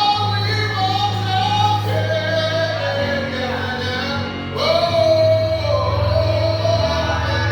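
Gospel song: a woman's voice singing held, gliding notes over sustained bass notes.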